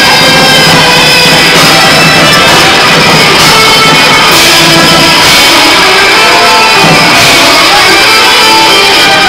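Live rock band playing loudly: electric guitars, bass and drum kit, with a violin playing along.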